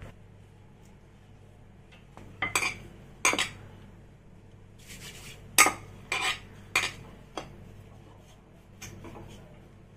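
Kitchen utensils clinking and knocking against dishes: about six sharp clinks between two and seven seconds in, while dough is being worked.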